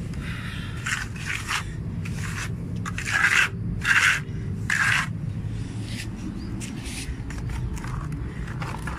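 Scraping on a rough concrete surface: a series of short gritty strokes, the loudest three coming close together about three to five seconds in, over a low steady rumble.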